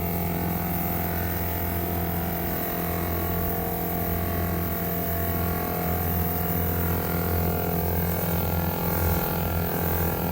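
Steady electric hum of a rechargeable foam sprayer's small pump motor running.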